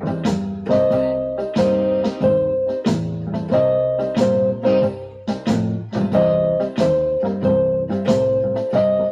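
Electronic keyboard played in a blues style with a piano-like sound: repeated chords struck over a moving bass line, with some notes held between strikes.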